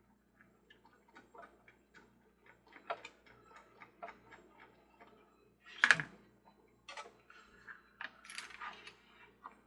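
Small irregular clicks and taps of the Ferris wheel's plastic base and metal parts being handled and screwed together, with one louder knock about six seconds in.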